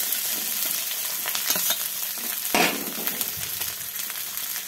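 Shredded cabbage sizzling as it fries in a little oil in a steel pan, with the scraping and clicking of a steel spoon stirring it. One louder knock about two and a half seconds in.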